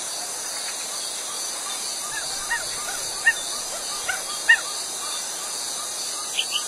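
Steady, high-pitched hiss of insects with a faint chirp repeating about three times a second. Between about two and four and a half seconds in come several short, high chirps, two of them louder than the rest.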